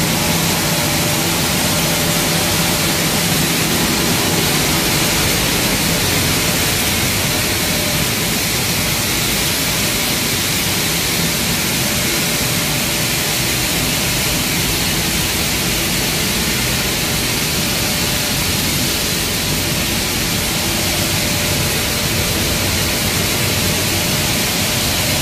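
Maize flour milling machinery running steadily: a loud, even mechanical noise with a faint steady hum beneath it.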